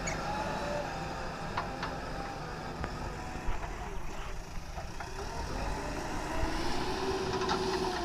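Diesel engine of heavy earth-moving machinery running steadily, with a few sharp knocks and a faint whine that rises a little in the second half.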